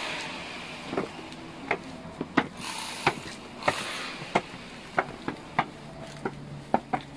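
Footsteps climbing concrete stairs: sharp taps of shoes on the steps, irregular, about one to two a second.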